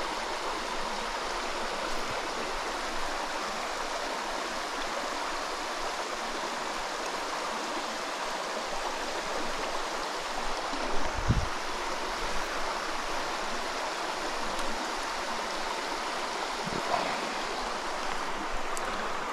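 Small rocky mountain stream rushing and splashing steadily over rocks into a pool, with a brief low thump about eleven seconds in.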